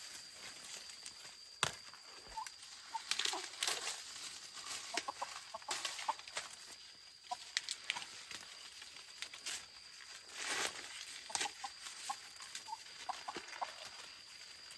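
Chickens clucking in short, scattered notes, with intermittent dry rustling and a sharp knock about a couple of seconds in.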